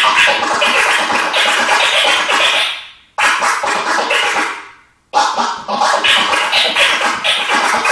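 Transformer scratching on a Numark NDX400 CD deck's jog wheel, played through a Numark M1USB mixer: fast scratches chopped on and off with the fader. The sound dies away twice, around three and five seconds in, and each time cuts back in sharply.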